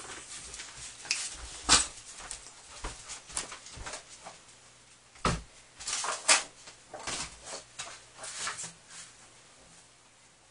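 Irregular knocks, taps and rustling of someone moving about a small room while hanging up a paper sign, with a few sharper knocks about 2, 5 and 6 seconds in.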